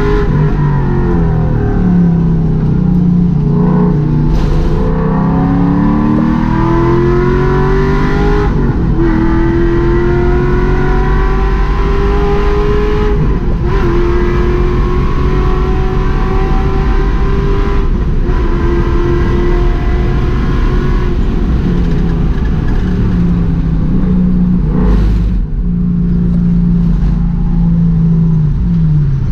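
Race car engine heard from inside the cockpit, running hard on track. Its pitch climbs and falls through the corners, with a brief break every few seconds at the gear changes, and it falls away near the end as the car slows.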